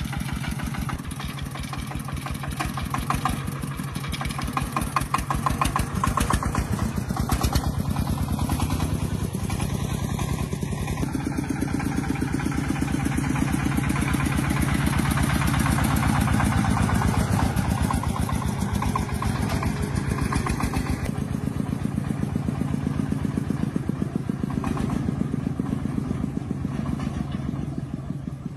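Diesel engine running continuously with a rapid, even firing beat, growing louder for a while in the middle.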